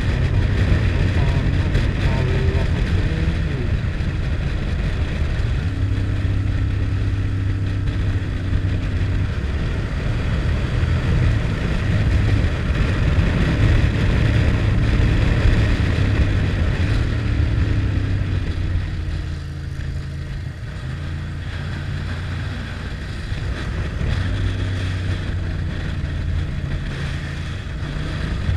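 Motorcycle engine running at road speed under the rider, with wind rush over the bike. The engine note holds steady, then shifts pitch every few seconds as the throttle and gears change through the bends. It gets a little quieter about two-thirds of the way through.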